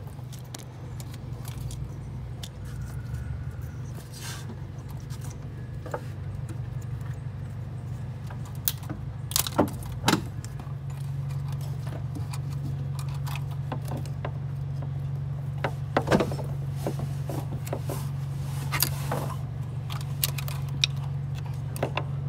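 Wrench work on the A/C compressor's mounting bolts: scattered sharp metallic clinks and rattles of the tool against bolts and brackets, loudest about nine to ten seconds in and again around sixteen seconds, over a steady low hum.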